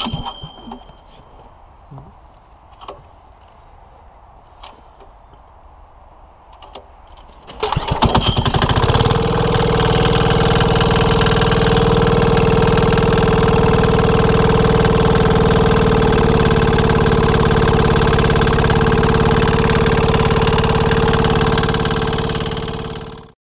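168F 196cc single-cylinder air-cooled diesel engine cold-started at about 20°F, its air intake pre-heated by a small flame. After a few seconds of faint handling clicks it catches about seven and a half seconds in, then runs steadily at about half throttle.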